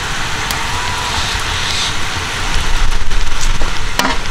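Chicken pieces sizzling in hot oil in a large aluminium pot as they are ladled out, with a low rumble underneath. A metal ladle knocks against the metal a couple of times, most sharply near the end.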